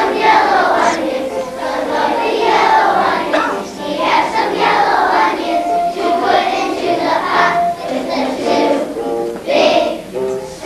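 A group of young children singing a song together, with one note held for about two seconds partway through.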